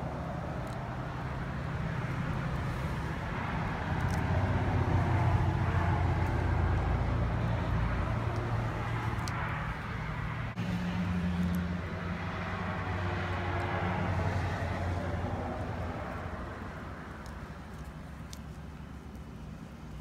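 A low motor rumble with a steady hum, swelling about four seconds in and fading away in the last few seconds.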